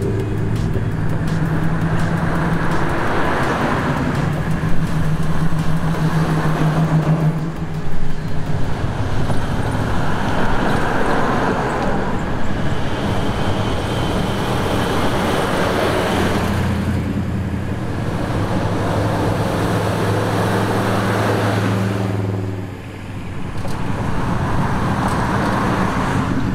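Classic cars driving past one after another, their engine notes and tyre noise swelling and fading as each one passes. There is a brief lull about three-quarters of the way through before the next car comes by.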